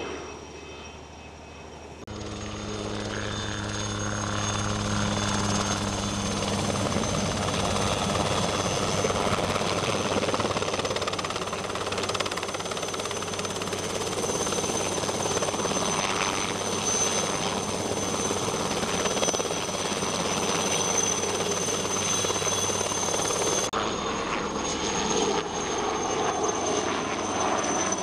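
Light turbine helicopter flying close by: a steady high turbine whine over the rotor and engine noise. The sound jumps louder at an edit about two seconds in and changes again near the end.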